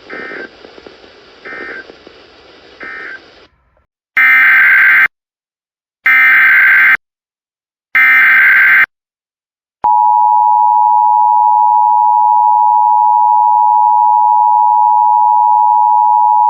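Emergency Alert System data bursts: three short, fainter bursts over hiss, then, after a pause, three loud screeching SAME header bursts about a second apart. About ten seconds in, the steady two-tone EAS attention signal starts and holds.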